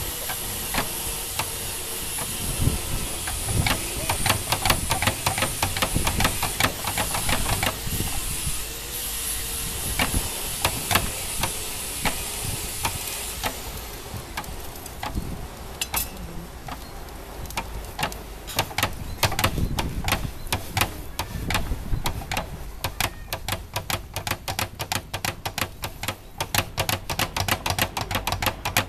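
Blacksmith's hammer striking metal on an anvil in hand-forging, the blows scattered at first and coming in quick runs toward the end. A steady high hiss runs under the first half.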